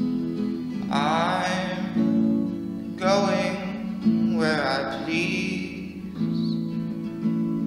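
Background music: a song with a strummed acoustic guitar, and sung phrases coming in at intervals over it from about a second in until about six seconds in.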